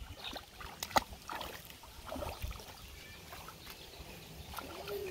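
Light sloshing and splashing of shallow muddy water stirred by a small child's wading feet, with one sharp click about a second in.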